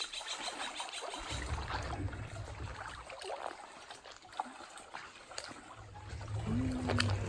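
Feet wading and splashing through a shallow rocky stream, with the water trickling over the stones, in irregular small splashes.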